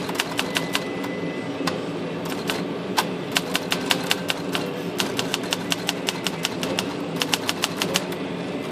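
Hermes 3000 manual typewriter being typed on as a test after its drawband and mainspring repair: quick runs of sharp key strikes with short pauses between them. A steady low hum runs underneath.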